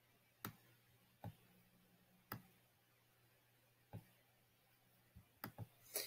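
Sparse, irregular computer mouse clicks against near silence: single clicks about every second early on, then a quick run of three near the end.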